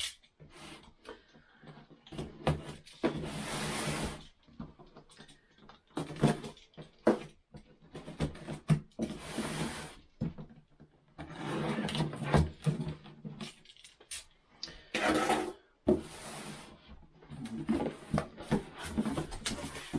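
Cardboard box and packaging being opened and handled: irregular rubbing and scraping with knocks and rustles, and several longer noisy passes of about a second each.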